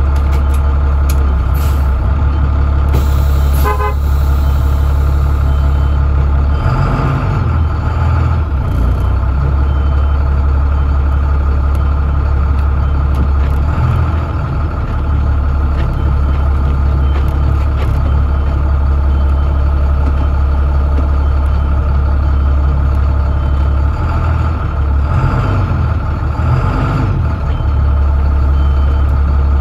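2009 IC CE300 school bus's 7.6 L MaxxForce DT inline-six diesel running shortly after a cold start, following two weeks of sitting, heard from inside the cab as the bus creeps through the lot. The engine note changes a few times as it pulls along and turns.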